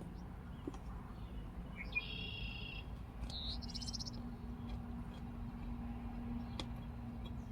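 Two brief high-pitched trilled chirps, about two seconds in and again a second later, the second higher than the first, over a low steady hum.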